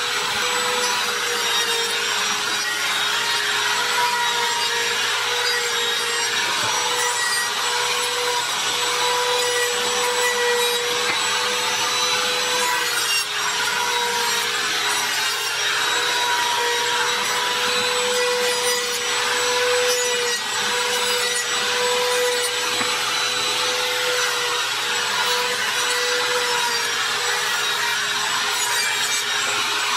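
Handheld trim router running at a steady high whine while its bit chamfers the edges of wooden leg pieces, with the rough rasp of the cut mixed in.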